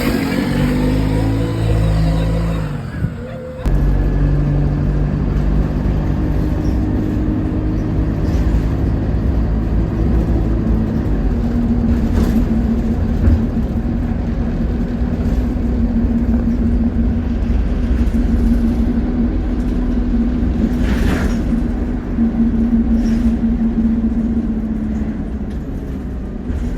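Alexander Dennis Enviro200 single-deck bus engine running, its pitch falling over the first few seconds. After an abrupt change a few seconds in it settles into a steady low drone with a held hum.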